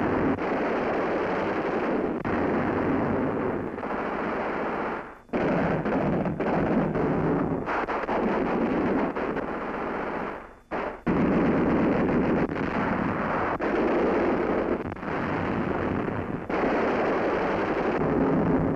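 Loud, continuous rapid automatic gunfire, with two short breaks about five and ten and a half seconds in.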